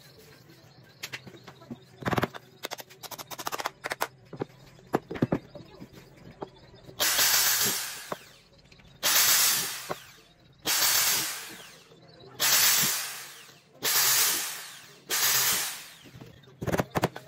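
Power drill boring into the end of a cylindrical roller in short runs of about a second each, six times in all, each run fading as it ends. Before the drilling, light knocks and clicks of the roller and tools being handled on the bench.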